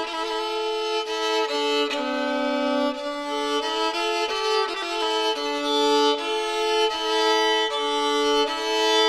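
Background music: a violin playing a melody of held notes that change about once a second, with no bass or drums.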